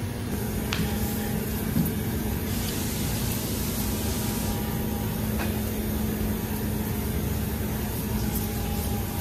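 A steady mechanical drone with a constant low hum, like workshop machinery running. The hiss brightens for a couple of seconds about three seconds in.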